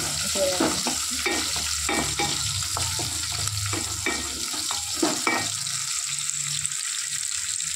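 Sliced onions sizzling in hot oil in a metal kadhai, stirred with a wooden spoon that scrapes against the pan, the stirring thinning out about five and a half seconds in while the sizzle goes on.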